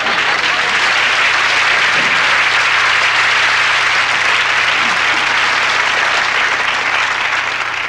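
Studio audience applauding, steady and dense, easing slightly near the end.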